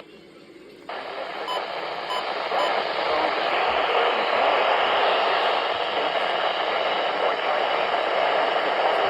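Weather radio receiver hissing with static, briefly quieter then rising louder after about a second, with a few faint short blips about two seconds in.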